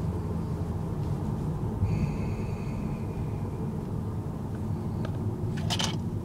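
Steady low rumble of a car's engine and tyres heard inside the cabin while driving. A steady high tone sounds for about a second and a half about two seconds in, and a short sharp click comes near the end.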